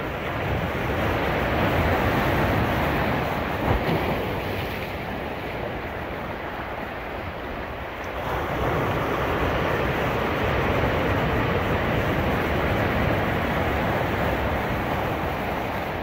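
Ocean surf washing on a beach: a continuous rushing of waves that swells over the first couple of seconds, eases off mid-way and builds again a little past halfway.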